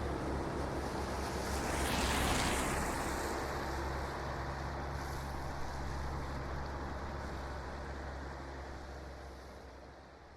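City ambience: a steady low rumble of distant traffic under a wash of noise, with a louder swell about two seconds in. The whole track then fades out gradually.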